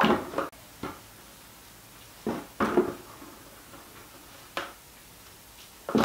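A few short knocks and clatters of things being handled and set down on a kitchen worktop, the loudest a brief clatter a little over two seconds in.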